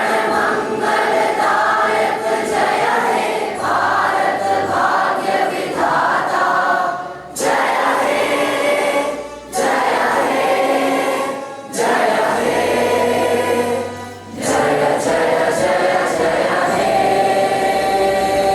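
A choir of many voices singing a song together, in phrases with short breaths between them.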